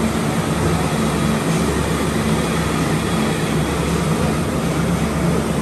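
Steady machinery noise of a commercial kitchen, an even roar with a low hum under it.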